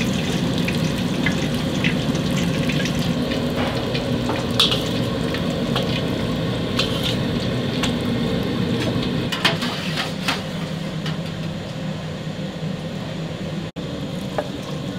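Hot oil bubbling and sizzling in steel bowls over a steady kitchen roar, with a metal ladle clinking now and then against the wok and bowls. The roar eases slightly near the end.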